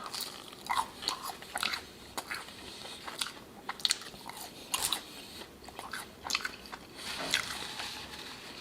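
A person chewing food close to the microphone, with frequent wet crunches and clicks of the mouth.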